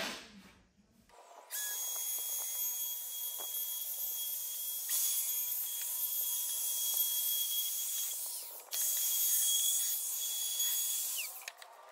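Compact palm router running at speed, cutting along the edge of a plywood apple box: a steady high whine that steps in level twice and cuts off shortly before the end.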